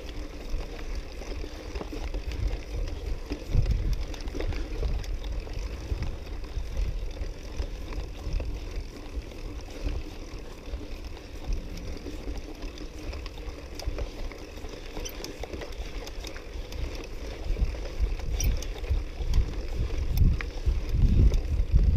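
Mountain bike riding along a dry dirt trail: tyre noise and small rattles and clicks from the bike, with wind rumbling on the microphone, louder in the last few seconds.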